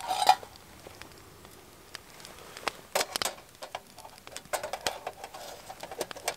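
Light metallic clicks and scrapes of a wire grill rack being set into and shifted inside a small folding metal smoker box. A louder clatter comes right at the start, a few sharp clicks about halfway, and a quick run of small clicks near the end.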